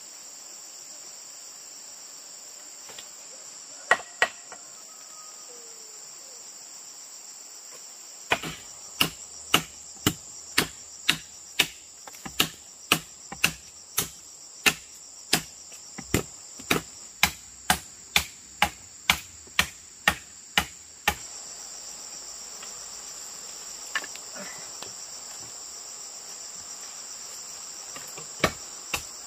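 Steady high insect chorus, with a run of sharp knocks about two a second from about eight seconds in until about twenty-one seconds, a pair at about four seconds and two more near the end.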